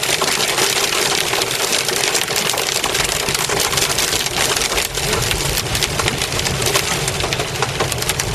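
Hail and heavy rain pelting a car's windshield and roof, heard from inside the cabin as a dense, unbroken clatter of countless small hits. A low rumble joins about three seconds in.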